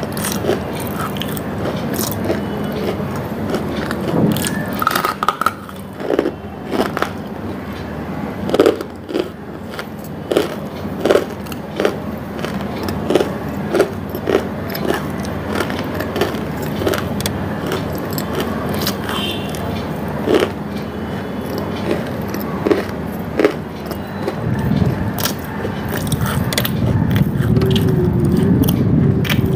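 Close-miked mouth sounds: irregular wet clicks and crunch-like snaps, one after another. Near the end a louder, rough rushing sound builds up.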